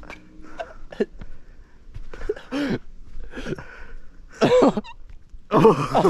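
Young men's wordless shouts and exclamations: three short outbursts, the loudest near the end, with a few light clicks between them.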